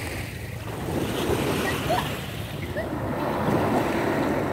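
Waves washing on a beach, with wind buffeting the microphone.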